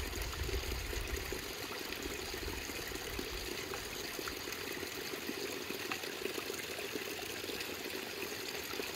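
Steady rushing water from a mountain stream.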